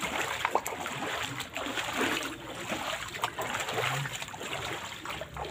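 Water trickling and splashing in shallow standing floodwater, with many small irregular splashes.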